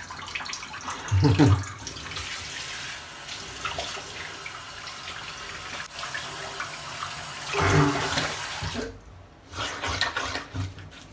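Bathroom tap running into the sink while the face is rinsed with water, with louder splashing just before the tap is shut off about nine seconds in.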